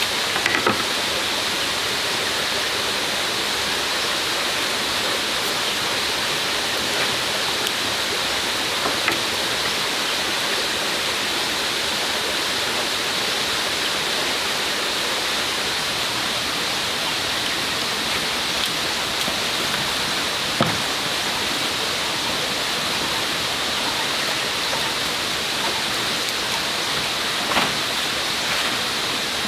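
Steady rushing of running water, with a faint high hum held steady through it and a few faint clicks scattered here and there.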